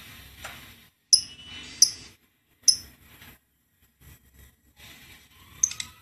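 Lovebird giving short, sharp chirps: three in the first three seconds and a quick pair near the end.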